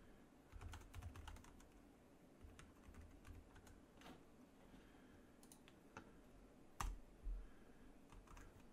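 Faint computer keyboard typing: scattered, irregular key clicks, with one louder keystroke about two-thirds of the way through.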